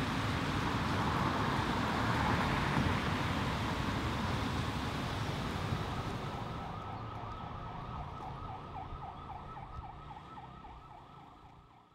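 City street traffic noise, with a fast-warbling siren joining about halfway through; the whole slowly fades out toward the end.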